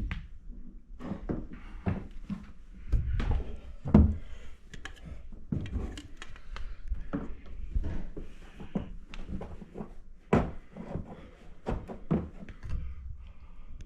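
Irregular knocks, clicks and thunks of smoke detector mounting bases being handled, with a louder knock about four seconds in and another just after ten seconds.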